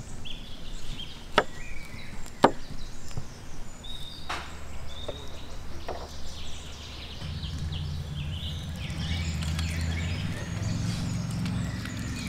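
Kitchen knife cutting through lemons on a wooden tabletop: a few sharp knocks of the blade hitting the board in the first six seconds. About seven seconds in, a steady low hum starts and carries on.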